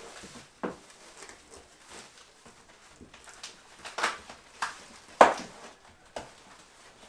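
Rummaging in a cardboard shipping box: light rustling with a handful of short, sharp knocks as the box and the small parts inside are handled, the loudest about five seconds in.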